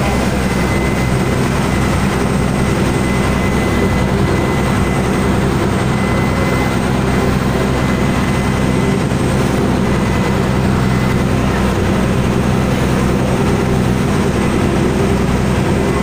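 Passenger launch's engine running steadily under way, a constant low hum, over the rushing noise of the wake churning behind the boat.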